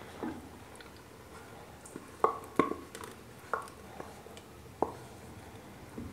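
Utensils knocking sharply against a metal cooking pot about five times, some with a short ring, as thick boiled lentil paste is scraped into the masala.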